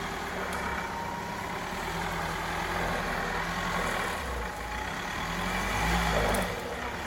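Off-road 4x4's engine running as it drives in deep mud, its low rumble growing stronger about four seconds in.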